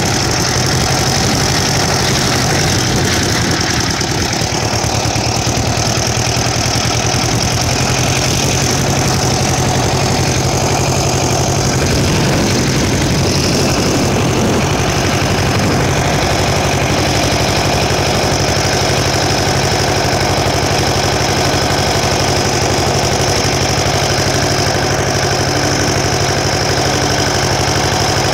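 Ursus C-330 tractor's two-cylinder diesel engine running steadily as the tractor drives along, heard close up from the driver's seat.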